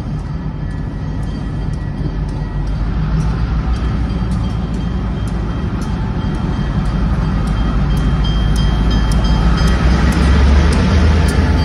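A pair of EMD GP15-1 diesel locomotives approaching on a freight train, their low engine rumble growing steadily louder. Over it the grade-crossing bell rings with even, regular strikes.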